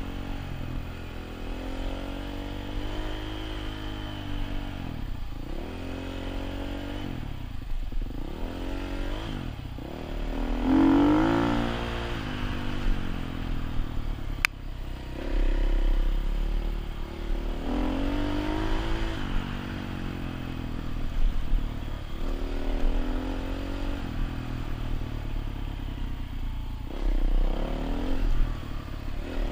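Dirt bike engine revving up and down again and again as the throttle opens and closes, with a single sharp click about halfway through.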